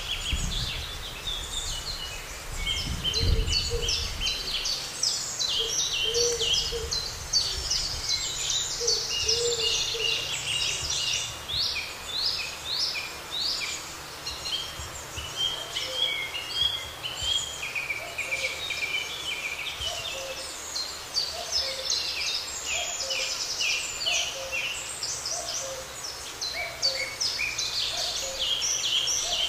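Several birds singing at once in a spring meadow: a dense, overlapping chorus of quick high chirps and trills. From about halfway through, a lower note repeats about once a second, and there is a low rumble in the first few seconds.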